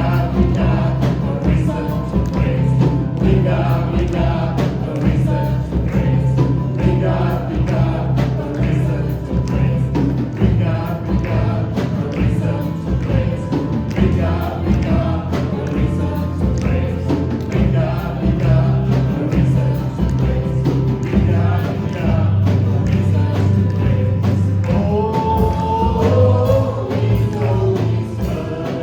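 Live church worship band with congregational singing: voices singing a gospel praise song over a band with a steady beat and prominent bass.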